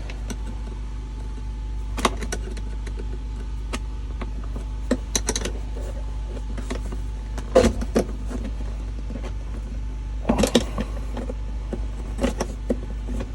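Scattered sharp metallic clicks and knocks of pliers and hands working the steel retaining tab and bracket of a handbrake lever assembly, the loudest clusters a little past halfway and about three quarters through, over a steady low hum.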